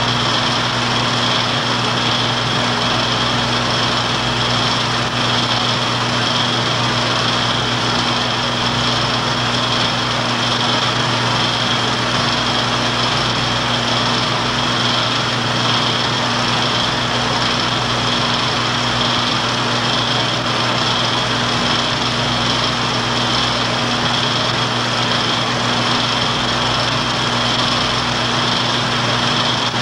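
Film projector running: a steady mechanical whir over a low electrical hum.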